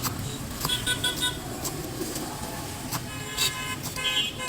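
Street traffic: vehicle horns tooting in short bursts, once about a second in and again near the end, with a few sharp knocks in between, over a steady low rumble of traffic.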